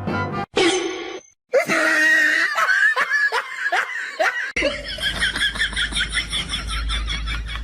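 People laughing in quick repeated bursts. Partway through, it cuts to another, higher-pitched run of fast laughter over a low rumble.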